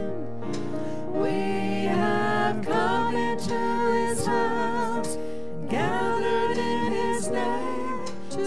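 Praise team singing a worship song: a man's and a woman's voices sung into microphones, holding long notes, over keyboard accompaniment, with a short breath between phrases.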